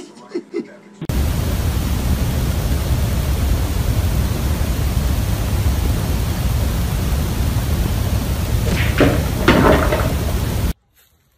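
Wind buffeting a phone microphone outdoors: a loud, steady rumble and hiss, with a couple of brief louder sounds near the end, cutting off suddenly.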